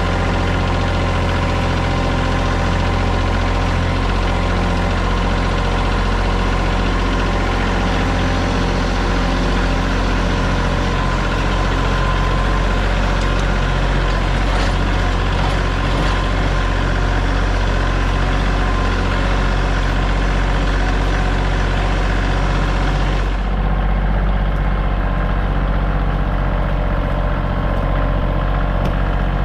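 Kioti compact tractor's diesel engine running at a steady speed while a log is loaded. About 23 seconds in, a high hiss in the sound drops away suddenly, and the engine note carries on unchanged.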